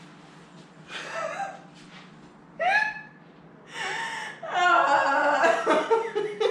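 People's short vocal exclamations, then laughter from about four and a half seconds in.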